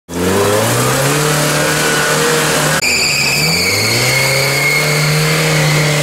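UAZ-469 off-roader's engine revving under load in mud, its pitch rising and falling. About three seconds in the sound changes abruptly and a high, steady whine runs alongside the engine.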